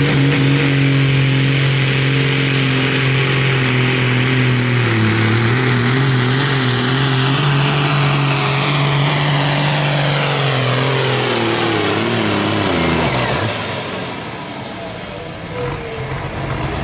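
A pulling truck or tractor engine running flat out under load, a loud steady drone with a high whine that slides down in pitch. About thirteen seconds in, the engine note falls and the sound drops away.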